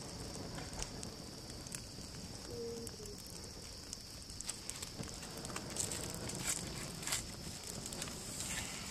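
Small fire of birch-bark and cedar-bark tinder crackling, with scattered sharp pops that come thicker and louder a few seconds in.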